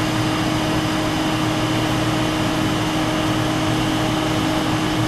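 Steady mechanical hum and air rush with a constant low tone.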